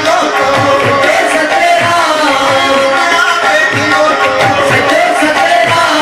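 Men singing a devotional dhuni chant into microphones, over a hand drum keeping a beat. The singing holds long, wavering melodic lines.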